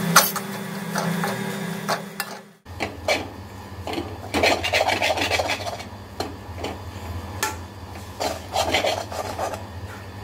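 Steel spatula scraping and stirring dry shredded chicken around an aluminium kadai: repeated rasping strokes of metal on metal, with busier runs of stirring near the middle and end.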